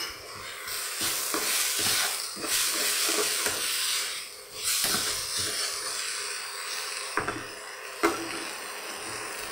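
Chopped vegetables sizzling in hot oil in a pan as they are stirred and sautéed, with a few short scrapes and knocks of the stirring.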